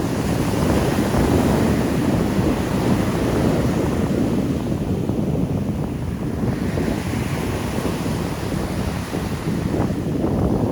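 Strong surf breaking and washing in rough sea, mixed with heavy wind buffeting the microphone; a continuous low rumble that swells and eases.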